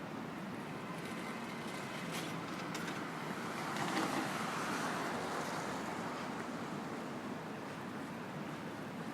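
City street traffic: a steady wash of passing cars, with one vehicle going by that swells and fades, loudest about four seconds in.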